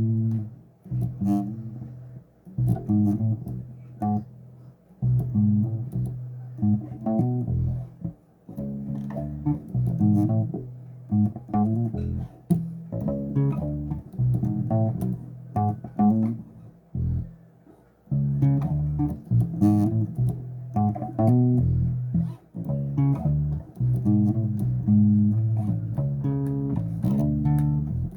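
Electric bass guitar played solo: plucked low notes in short phrases, each note rising out of a sharp attack and the phrases breaking off with brief gaps between them.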